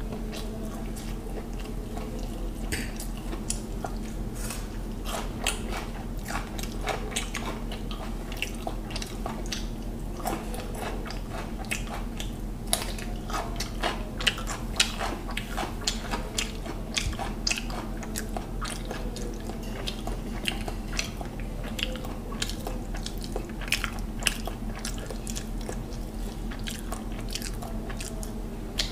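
Close-up mouth sounds of a man chewing mutton biryani: irregular wet clicks and smacks, a few sharper than the rest, over a steady low hum.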